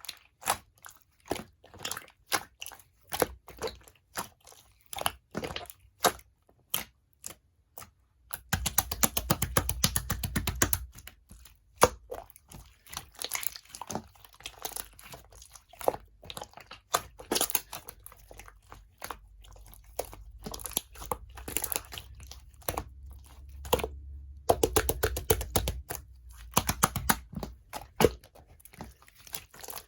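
Hands squishing and pressing slime: a string of sticky pops and clicks, with two stretches of dense crackling, about nine seconds in and again around twenty-five seconds.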